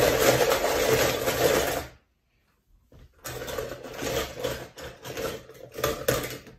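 Small die-cast toy cars clattering and rattling against each other in a plastic bowl as hands stir through them. A continuous rattle stops about two seconds in; after a short pause a second, choppier bout of rummaging with sharper clicks runs until just before the end.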